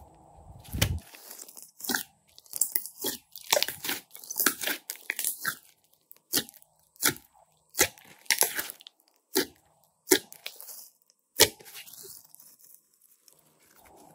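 Glossy slime being squeezed and folded by hand, giving irregular sharp pops and crackles as trapped air bubbles burst, with soft squelching between them.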